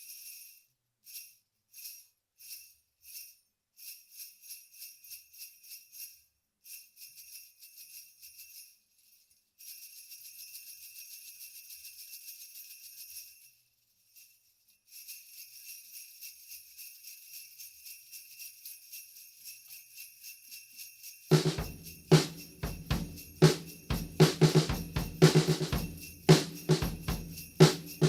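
A hand rattle of small brass sleigh bells jingling, shaken in short separate bursts at first and then in longer runs of continuous shaking with brief pauses. About three-quarters of the way in, a loud rhythmic beat of low thumps starts up under the bells and becomes the loudest sound.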